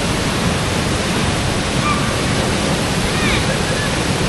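Waterfall pouring steadily, an even rush of falling water.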